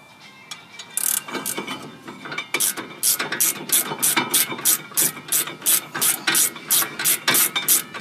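Hand socket ratchet clicking as a loosened brake caliper bolt is backed out. A few uneven clicks start about a second in, then a steady run of about three clicks a second.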